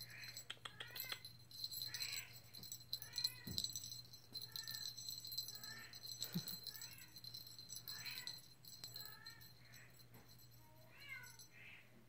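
Bengal cat meowing over and over: short, high calls about once a second.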